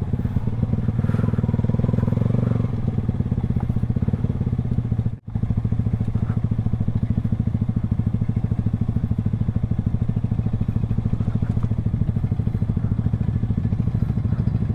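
Small single-cylinder motorcycle engine running at a steady cruising speed with an even, rapid beat. The sound cuts out for a split second about five seconds in.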